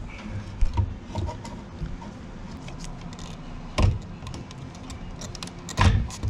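Fuel pump assembly knocking and scraping against the fuel tank opening as it is twisted and worked loose, with scattered small clicks and two louder knocks, one about four seconds in and one near the end.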